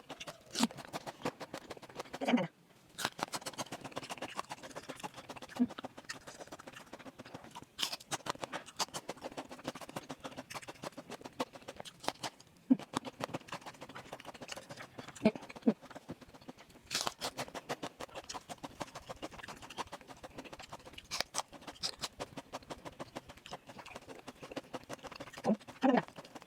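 Close-up eating sounds: chewing with frequent wet mouth clicks and smacks, and a few sharper taps scattered through.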